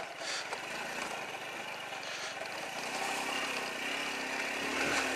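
Honda C90 Cub's small single-cylinder four-stroke engine running steadily as the bike is ridden along a rough dirt track, getting a little louder toward the end.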